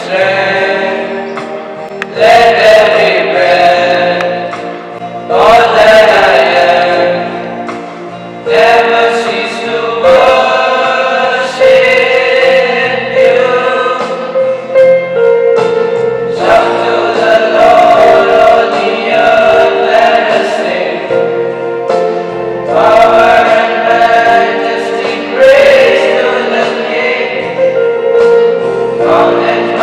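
A group of voices singing a Christian prayer song together, in phrases a few seconds long.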